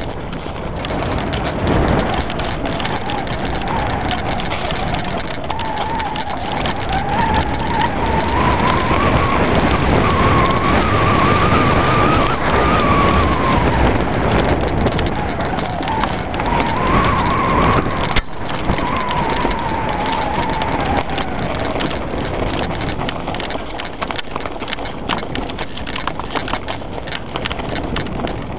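Off-road enduro ride on a rough mountain track: steady wind and rattling noise, with a thin whine that rises and falls in pitch through the middle and a sharp knock about two-thirds of the way in.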